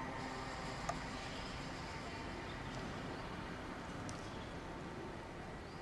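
Steady outdoor background noise, like distant city traffic, with one sharp click about a second in.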